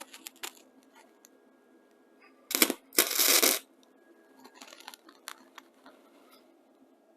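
Welding arc crackling in two short bursts about two and a half and three seconds in, the second lasting about half a second, with fainter crackles a couple of seconds later: first attempts at tack welds on the car's rust repair.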